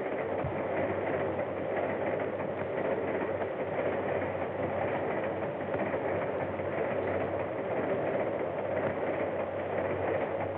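Train running at speed: a steady, unbroken rumble and rattle, dull and muffled on an old soundtrack that cuts off the highs.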